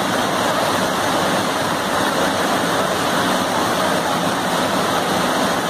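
Floodwater rushing over a submerged road bridge and pouring off its side, a steady rushing noise.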